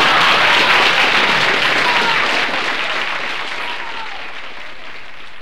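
Audience applause on a 1963 vinyl comedy record, loud at first and fading away over about four seconds.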